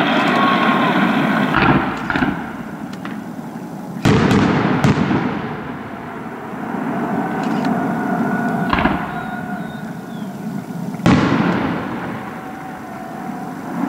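Fireworks display: about six aerial shells bursting with loud bangs, the biggest about four seconds in and near the end, each dying away slowly before the next.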